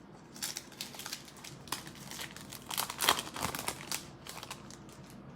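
Plastic foil wrapper of a football trading card pack crinkling and tearing as it is opened and handled, in a run of short crackles for about three and a half seconds.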